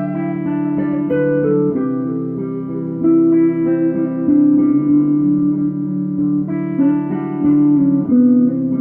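Guitar music: plucked notes and chords ringing over one another, with the notes changing every second or so.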